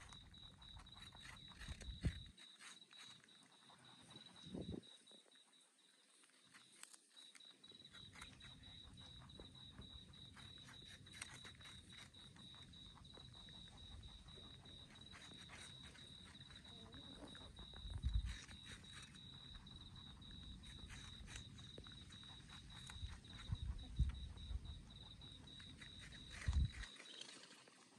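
Two rabbits chewing and nibbling apple at close range: quick, soft crunching clicks. Behind them runs a steady high-pitched tone, and there are a few low thumps, the loudest about a third of the way in and near the end.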